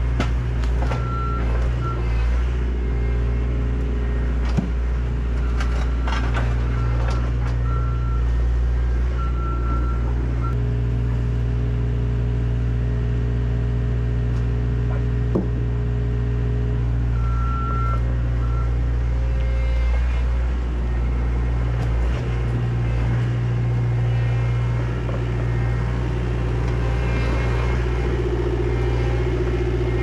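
Diesel engine of the heavy equipment working the Beak concrete-removal attachment, running steadily while concrete slabs are pried up and loaded. Intermittent reversing beeps come in several short runs, and a few sharp knocks of concrete can be heard.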